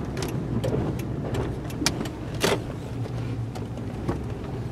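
Vehicle engine and road noise heard from inside the cabin at low speed, a steady low hum with a few scattered light clicks and one louder knock about two and a half seconds in.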